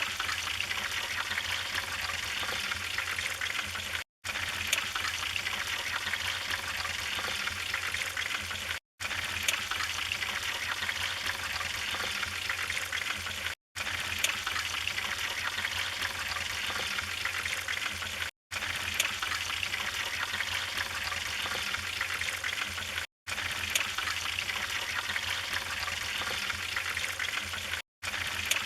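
Wood fire burning in a fireplace: a steady hiss scattered with small crackles and occasional louder pops. The sound drops out for a split second about every five seconds.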